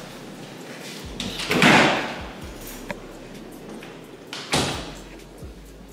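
A door being moved twice during a walk through an apartment: two short rushing noises about three seconds apart, the first the louder.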